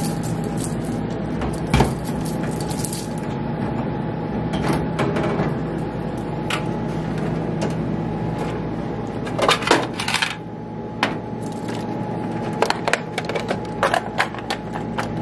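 Clicks and metallic clatter from handling the coin and bill mechanisms of an opened snack vending machine, with coins clinking. The loudest cluster comes about two-thirds of the way in, and many small clicks follow near the end, over a steady low hum.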